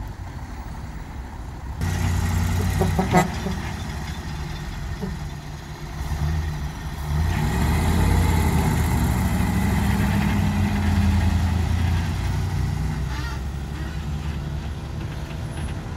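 Heavy diesel engines of a stuck, sand-laden dump truck and a wheel loader working hard. They grow louder about two seconds in and again from about seven to twelve seconds as the loader tries to pull the truck out of the sand. A single sharp knock comes about three seconds in.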